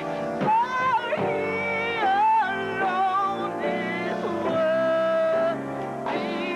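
Gospel singing: a lead voice holding long notes with a wavering vibrato and sliding between pitches.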